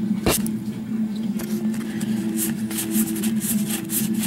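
Trading cards being handled and flipped through, making short papery swishes and one sharp click near the start, over a steady low hum.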